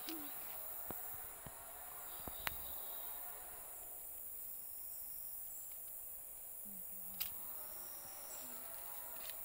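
Steady high-pitched buzzing chorus of insects, with a few sharp clicks, the loudest about two and a half seconds in and another around seven seconds.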